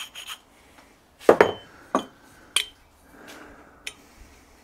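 Metal parts clinking and knocking together as they are handled, with one louder knock about a second and a half in that rings briefly, a few lighter clicks after it and a short rub.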